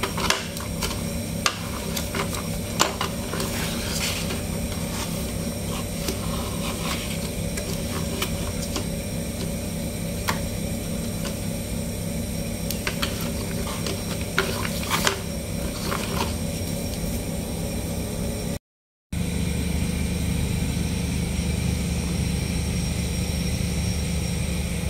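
Blue plastic toy dump truck and trailer being handled: scattered light clicks and knocks of hard plastic parts over a steady background hum. After a brief break in the sound about 19 seconds in, only the hum remains.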